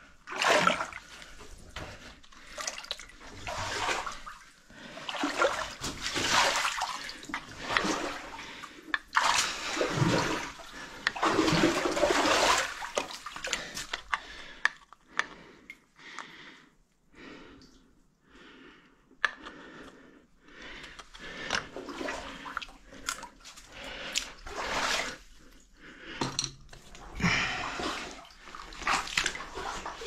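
Shallow muddy water sloshing and splashing in irregular surges as a person crawls through a flooded mine passage, louder in the first half with quieter stretches after.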